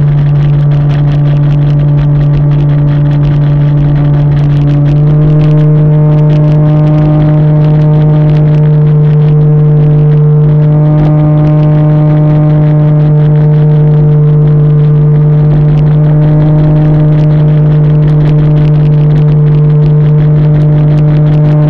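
RC airplane's motor and propeller running at steady cruise throttle, picked up by the onboard camera as a loud, constant drone. Its pitch steps up slightly about five seconds in as the throttle is raised, then holds.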